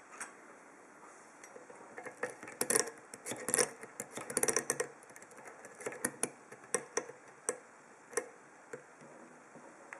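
Small sharp clicks and taps of a Viro padlock and lock-picking tools being handled: a cluster of rattling clicks, then single clicks spaced about half a second to a second apart.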